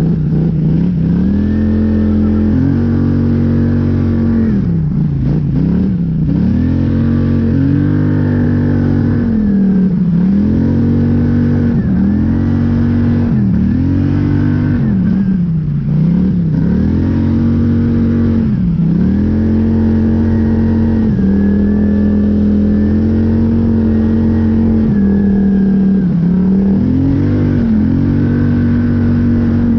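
Polaris Scrambler 850 ATV engine under load while ridden through deep fresh snow, the throttle opened and eased off again and again so the engine note rises and falls every couple of seconds, holding steadier for a stretch past the middle.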